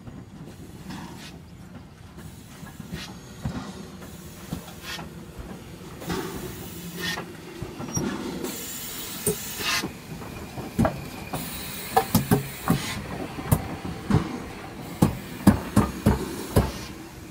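Ivatt Class 2 steam tank locomotive No. 41298 running slowly past along a station platform with a steady low rumble. Steam hisses in two bursts about halfway through, and a run of sharp metallic clanks and knocks from the wheels and running gear follows in the second half.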